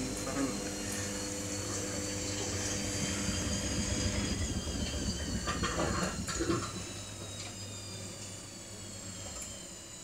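Samsung front-loading washing machine running at the start of a cycle: a steady hum with a thin whine, a few clicks and knocks about halfway through, then the sound eases off somewhat.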